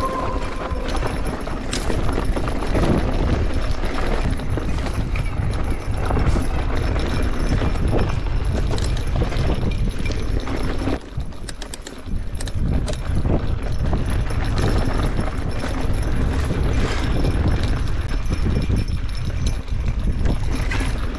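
Mountain bike rattling and knocking over a rough, narrow singletrack, with brush scraping past the bike and a steady rumble of wind on the microphone; it eases off briefly about eleven seconds in.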